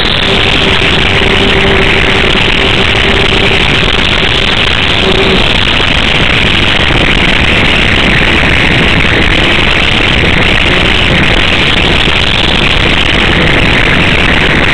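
Multiplex EasyStar RC plane in flight, heard from its onboard camera: loud, steady rushing of air over the small microphone, with a steady hum from the electric pusher motor and propeller that drops away about five seconds in.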